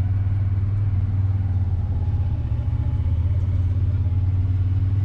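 Side-by-side utility vehicle engine running with a steady low drone, heard from the driver's seat.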